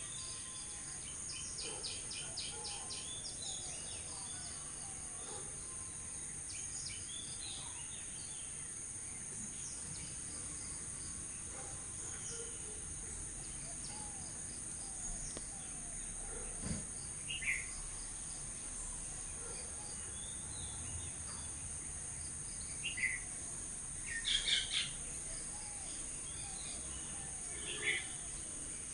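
Steady high-pitched insect drone, with bird chirps and calls scattered over it: a quick trill about two seconds in and sharper single calls in the second half, the loudest a cluster near the end.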